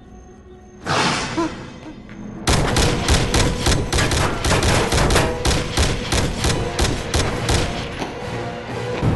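A sudden loud rush about a second in, then from about two and a half seconds a long string of rapid gunfire from an automatic weapon, about four or five shots a second, in a sci-fi TV soundtrack.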